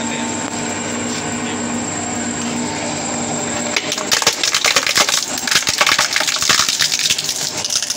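MKS CP30 mini plastic shredder running empty with a steady hum, then, about four seconds in, a plastic basin dropped onto its toothed cutting shafts starts cracking and crunching in rapid, irregular snaps as it is torn apart.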